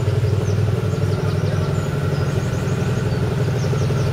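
A motorcycle engine idling steadily close by, with a fast, even pulse.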